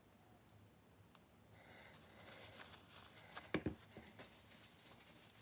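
Faint handling sounds of a Shimano XTR pedal being turned and rocked on its axle by hand to check the freshly greased bearings for play or notchiness: a soft rustle that builds about a second and a half in, with a few light clicks and two sharper knocks near the middle.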